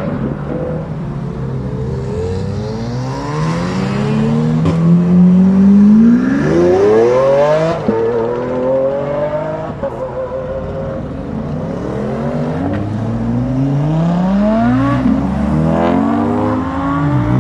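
Several cars accelerating hard away one after another, each engine note climbing steeply in pitch with sudden drops at gear changes. The loudest pull peaks about six seconds in.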